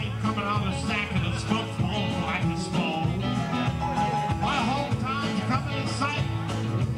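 Live band playing an upbeat country / rock-and-roll number through PA speakers, with a man singing into a microphone over electric guitar.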